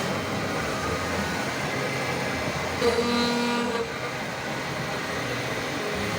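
High-feed carbide face mill on a CNC milling machine cutting S355 steel: a steady machining noise, with a brief pitched tone about three seconds in.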